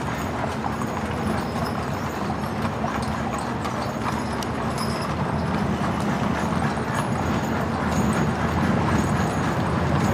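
Horses' hooves clip-clopping steadily, as horses and horse-drawn wagons of a wagon train go by.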